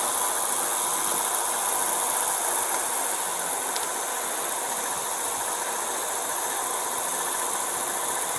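A vehicle engine idling under a steady hiss, heard through a police body camera's microphone.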